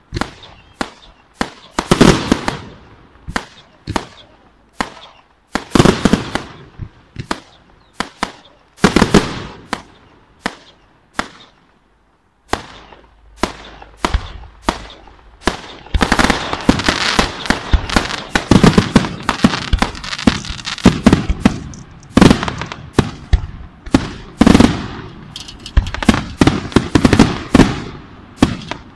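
Fireworks shells bursting with loud bangs, one after another, at first about a second apart. After a brief lull about twelve seconds in, the bangs come thick and fast and overlap in a dense barrage.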